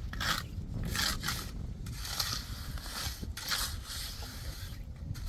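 Repeated rough scraping strokes, irregular in timing, each about half a second long.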